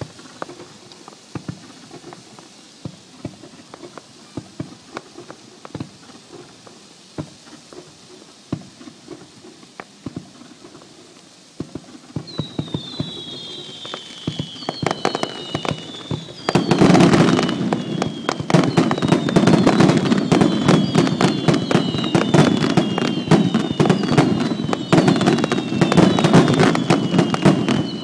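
Fireworks: scattered faint pops at first, then about twelve seconds in a building hiss with a series of falling whistles, and from about sixteen seconds a loud, dense barrage of bangs and crackling with whistles still falling over it.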